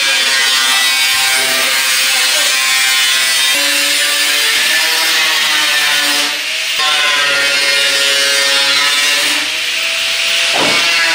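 Angle grinder cutting through the sheet-steel front wing of a Jaguar XJ6. Its whine shifts in pitch as the disc bites and eases, and it lets up briefly about six seconds in and again near the end.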